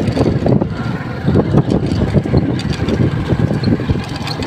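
Motorcycle engine running while the bike is ridden, with an uneven low rumble throughout.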